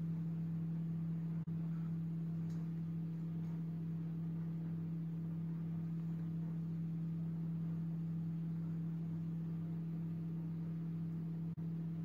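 A steady low hum, one deep tone with fainter overtones, that cuts out for an instant twice: about a second and a half in and near the end.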